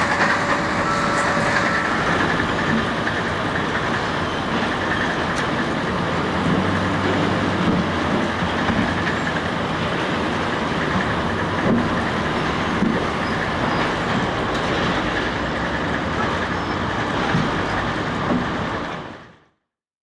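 Heavy diesel log-handling machinery, a Kalmar RTD1623 log stacker, running and working: a steady mechanical rumble with occasional knocks, fading out near the end.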